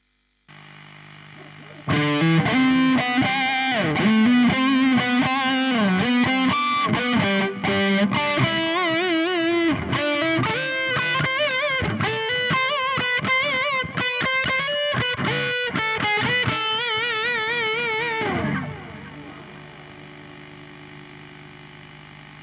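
Distorted electric guitar riff played through revived dead EMG active pickups with DIY preamps and an amp simulator. Held notes wobble with vibrato near the end, and the last note slides down in pitch. A steady hum and hiss sits under the playing and remains before and after it: the poor signal-to-noise of the revived pickups.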